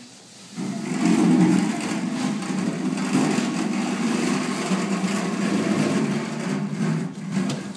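Steady engine-like rumble with a hiss over it, starting about half a second in and easing off near the end.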